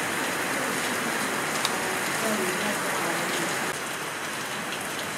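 Steady rain falling, an even hiss, with faint murmuring voices in the background.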